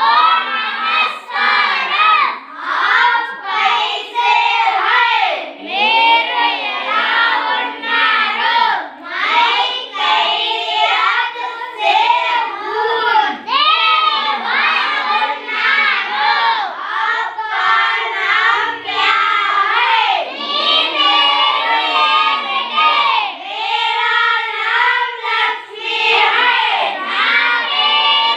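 A group of schoolchildren singing together in unison, phrase after phrase at a regular pace.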